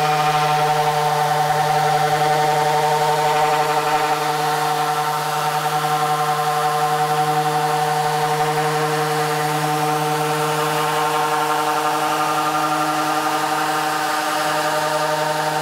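Electric sander running steadily, sanding the plywood bench top with 120-grit paper: an even motor hum with a hiss of abrasive on wood.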